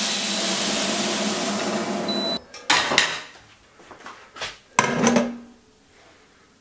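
Diced celery sizzling in a stainless steel stockpot stops suddenly after about two and a half seconds. Then come a few clanks and scrapes of the metal pot as the sweated celery is emptied out and the pot is set back on the induction hob.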